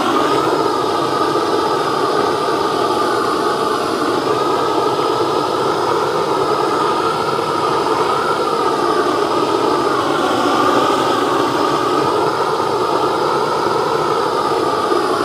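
Hose-fed blowtorch burning steadily, its flame played over a chainsaw-carved wooden pumpkin to scorch the surface and burn off fuzzy fibres. A loud, even rushing noise that wavers slightly in pitch.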